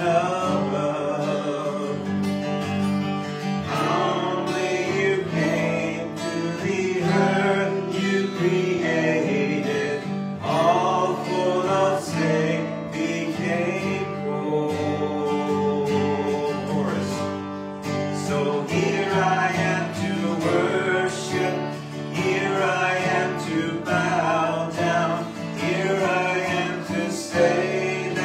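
Acoustic guitar strummed in steady chords with singing over it, a slow song sung to the guitar.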